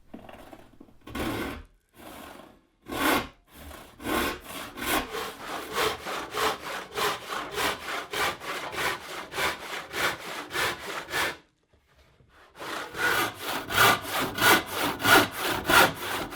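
4 TPI hand rip saw ripping a board along the grain: a few slow starting strokes, then steady push-pull strokes about two a second. The sawing stops for about a second near eleven seconds in, then picks up again at a quicker pace.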